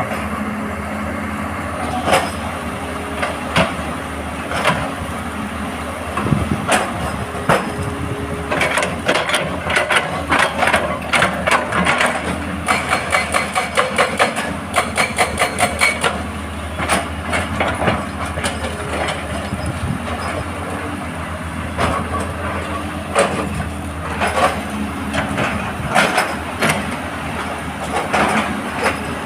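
Excavator diesel engine running steadily at rock work, with scattered sharp knocks of steel on rock and a run of rapid, regular impacts from about nine to sixteen seconds in.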